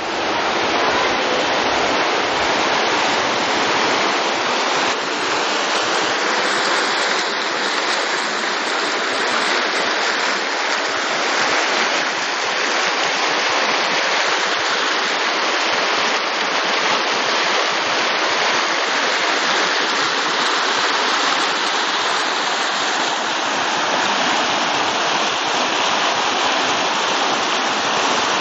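Loud, steady rush of fast-flowing water, a river or falls swollen by the storm's rains.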